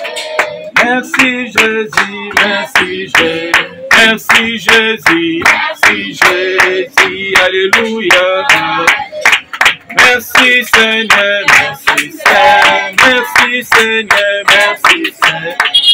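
A group of children singing a song together and clapping their hands to a steady beat, about two to three claps a second.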